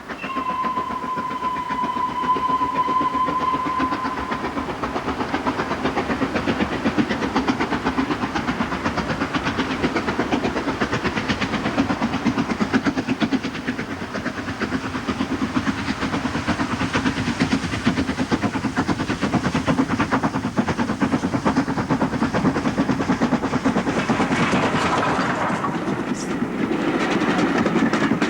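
Steam whistle of a Gresley N2 class 0-6-2 tank locomotive sounding for about four seconds. Then the engine runs with a fast, even beat and rail noise, a little louder near the end.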